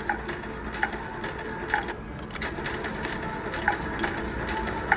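Slot machine game sounds: rapid clicking ticks with short electronic chimes coming about once a second, over a steady background hum.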